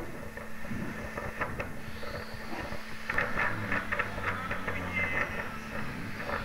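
Noise on a cargo ship's deck in a rough sea: a steady low rumble and hum of the ship with rapid rattling and clattering, busiest from about three seconds in.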